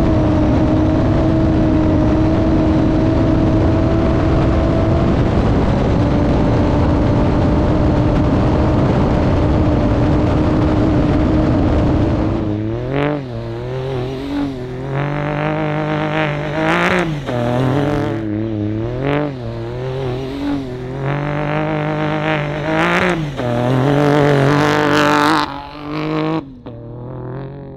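Honda Ridgeline trophy truck's HRC twin-turbo V6 running hard at steady high revs over a dense bed of wind and terrain noise. About twelve seconds in, the sound changes to the engine revving up and dropping back again and again, rising and falling in pitch as it works through the gears.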